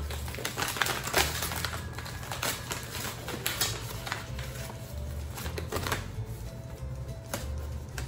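Paper bag of maize meal crinkling and rustling as it is opened and a hand rummages inside, a quick irregular run of crackles, over faint background music.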